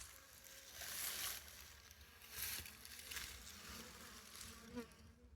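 Honeybees flying and buzzing faintly around a hive entrance, with a few brief swells of noise.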